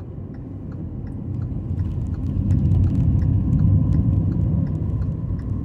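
Low rumble of a car driving, road and engine noise heard inside the cabin. It swells louder about two seconds in and eases off near the end, with faint light ticks over it.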